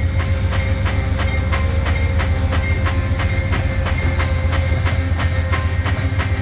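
Union Pacific freight train's cars rolling past, a steady low rumble with the wheels' rhythmic clickety-clack, several clicks a second, falling in pairs.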